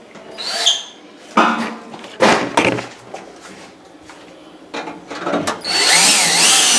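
A few knocks and clatters of sheet metal being handled, then about two-thirds of the way through a power drill starts driving a screw into the oven's back panel, its motor whine rising and falling in pitch.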